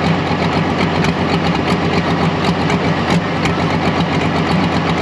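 Diesel engine of a pro stock pulling tractor idling steadily, its exhaust stack smoking lightly, with no revving.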